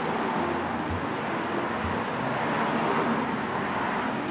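Steady noise of road traffic in the street.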